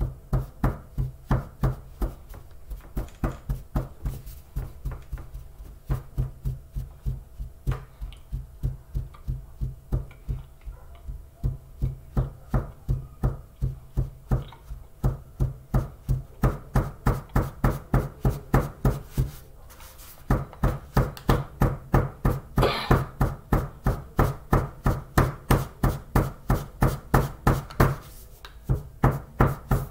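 Close-up crunching as a mouthful of hard tapioca chunks is chewed, about three crunches a second, with a short break about two-thirds of the way through and another near the end.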